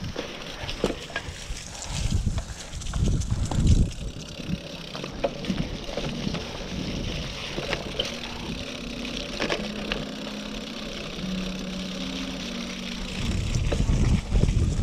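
Cyclocross bike ridden over a leaf-covered forest dirt trail: tyres rolling and the chain and frame rattling in sharp clicks, with gusts of wind buffeting the action camera's microphone, strongest about two to four seconds in and near the end.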